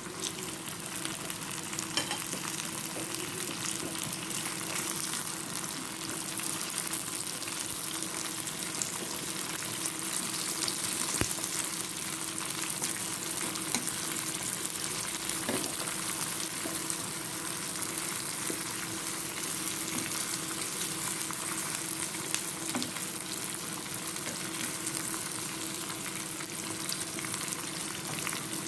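Sliced tomatoes and scotch bonnet peppers frying in a pan for a sauce: a steady sizzle, stirred now and then with a few light knocks of the spoon.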